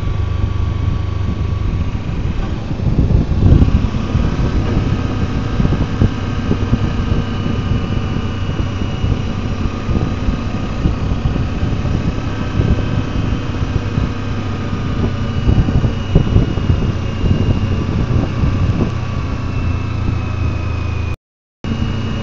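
Kawasaki Versys-X 300's parallel-twin engine running steadily while riding, with wind noise on the microphone. The sound cuts out completely for about half a second near the end.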